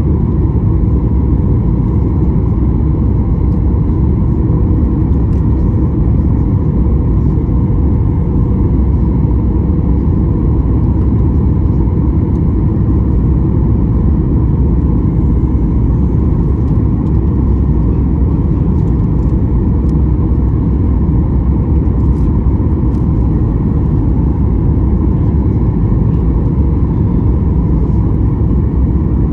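Steady cabin noise of a Boeing 737 MAX 8 airliner: a loud, even rumble of engines and airflow with a faint steady whine.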